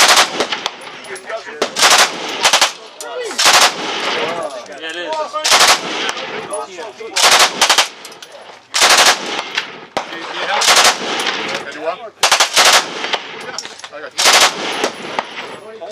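Automatic pistol fired on full auto in short bursts and single shots, one every second or two, each a sharp crack with ringing echo after it.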